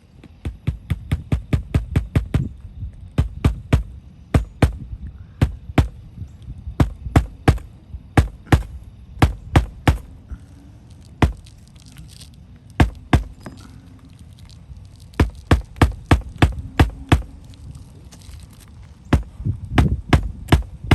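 Rapid runs of sharp hammer strikes on a shingle roof, about four or five blows a second with short pauses between runs.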